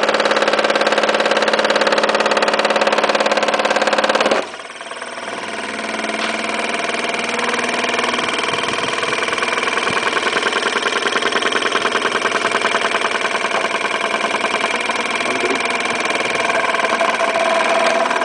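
Small electric motor spinning the rotor of a persistence-of-vision LED clock display: a steady mechanical whir with a fast flutter. The sound changes abruptly about four seconds in, dipping and then building back up over the next few seconds.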